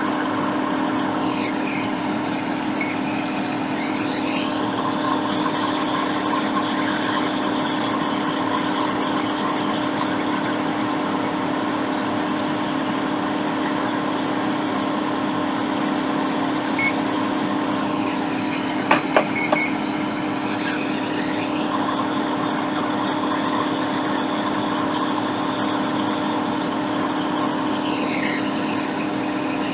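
Solder fume extractor fan running with a steady hum. A few sharp clicks about two-thirds of the way through.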